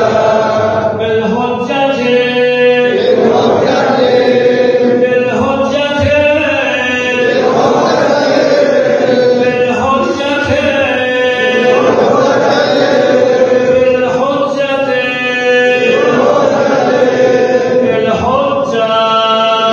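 A large group of men chanting a short religious invocation in unison, the phrase coming round again about every two seconds, echoing in a domed mosque hall.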